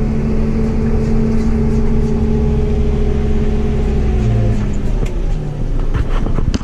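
Vehicle engine running steadily while driving, its note easing off about five seconds in as it slows.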